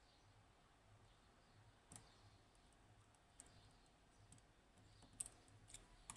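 Faint, scattered metallic clicks of a pick working the pins of a Yanai R 2200M high-pin-count lock, with a few ticks about two and three seconds in and more of them closer together near the end.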